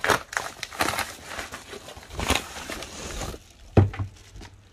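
Padded paper mailer crinkling and rustling as it is handled and a box is pulled out of it, with a thump about four seconds in.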